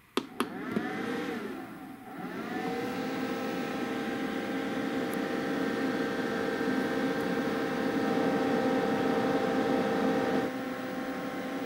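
A click as the Jackery Explorer 1000's AC output is switched on. Then the power station's cooling fan whirs under a load of nearly 800 watts from an electric hot pot: its pitch dips and rises for the first couple of seconds, then settles into a steady whine that eases slightly near the end.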